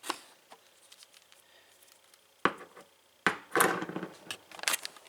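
A metal padlock spun on a hard surface: a few sharp knocks, then about three and a half seconds in a rattling clatter of quick knocks lasting over a second as it spins against the surface.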